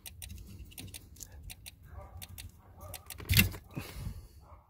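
Irregular plastic clicks and rattles as the large white wiring connector under a 2008 Range Rover Sport's driver seat is worked loose by hand, with one sharp knock about three and a half seconds in.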